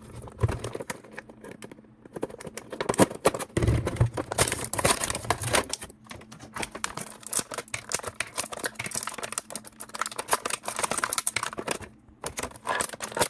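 Cardboard box and plastic packaging of an action figure being opened at fast-forward speed: a dense run of rapid crinkling, tearing and clicking, with a few dull handling thumps.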